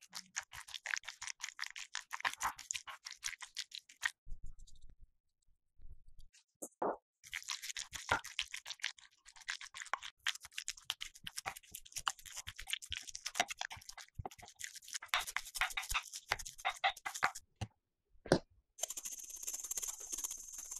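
A spoon mixing sliced sausages, cheese and sauce in a glass bowl: rapid scraping and clicking in two long spells, with a pause of a few seconds near the start. Near the end, a pepper grinder being turned over mashed potato, a steady grinding hiss.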